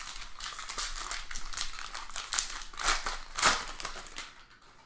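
Trading-card pack wrapper crinkling and crumpling as a pack is torn open and handled, with louder crackles about three and three and a half seconds in, dying down near the end.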